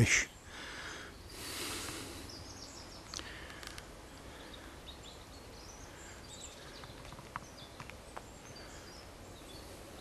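Faint outdoor ambience with scattered distant birdsong, a soft rush about a second in, and a few light clicks.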